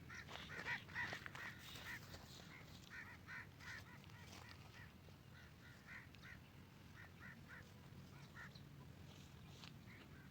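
Birds calling in the distance: short, repeated calls in quick runs of two or three, fading toward the end.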